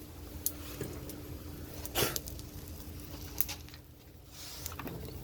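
A few light clicks and knocks, the loudest about two seconds in, over a faint steady hum, while the heated subframe mount and tools are handled.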